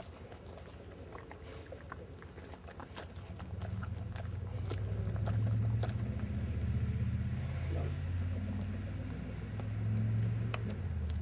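English Mastiff chewing and gnawing a raw pork butt, with scattered wet clicks and crunches. About three and a half seconds in, a low rumble starts and carries on to the end, swelling and easing.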